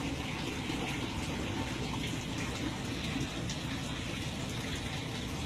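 Steady rush of water running into an aquaponics fish tank through its PVC plumbing.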